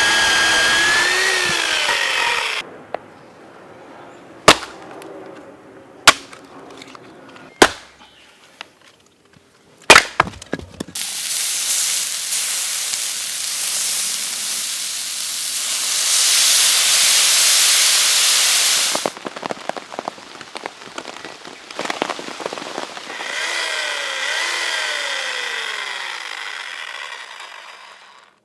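Hatchet blade striking wood in four sharp single blows about a second and a half apart, followed by a long steady rushing noise. Whistling calls that slide up and down in pitch open and close the passage.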